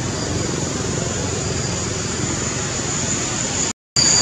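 Steady outdoor background noise: a continuous low rumble with a thin, high, steady whine over it. It cuts out completely for a moment near the end.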